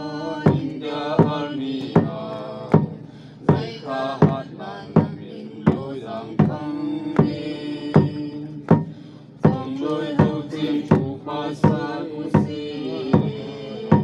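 A man chanting a traditional song from a printed sheet, the held notes sliding slowly. A drum is struck at a slow, steady beat, a little over one stroke a second, under the voice.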